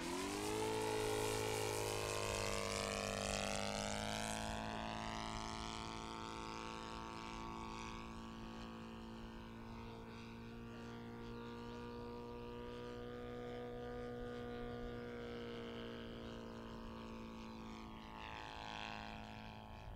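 Saito FG57TS twin-cylinder four-stroke petrol engine of an RC aerobatic plane in flight, climbing sharply in pitch over the first few seconds, then running steadily with its pitch drifting gently up and down. Loudest near the start.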